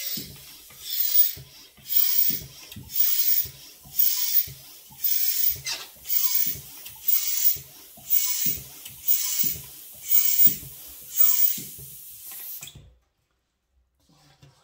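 Hand balloon pump inflating a long modelling balloon: a hiss of air on each stroke, about one stroke a second, a dozen in all, each ending with a short falling squeak; the pumping stops abruptly near the end.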